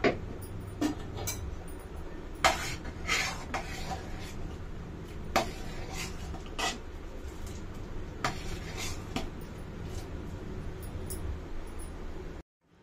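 A metal ladle stirs thick milk-and-barley kheer in a steel pot, clinking and scraping against the pot at irregular moments over a steady low hum.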